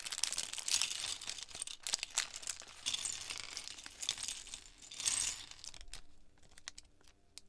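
Clear plastic Lego parts bag crinkling as hands rummage in it, with small plastic bricks clicking and clattering against each other. It quietens after about five seconds, leaving a few scattered clicks.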